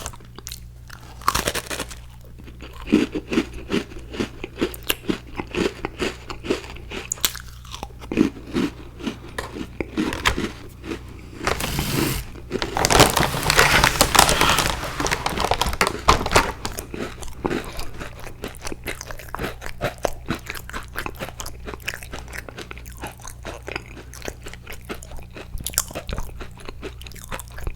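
Close-miked biting and chewing of crunchy Icee-flavoured cookies: crisp crunches throughout, densest and loudest for a few seconds in the middle.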